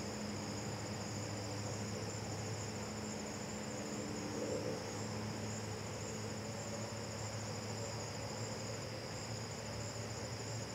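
A steady chorus of crickets trilling continuously in two high pitches, over a faint low hum.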